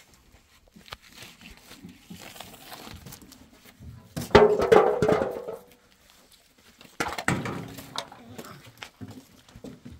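An animal call, loudest about four seconds in and again more weakly around seven seconds, with crackling, rustling noise in between.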